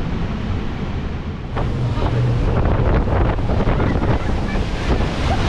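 Motorboat running on the river, with wind buffeting the microphone and water rushing past. It grows louder about a second and a half in.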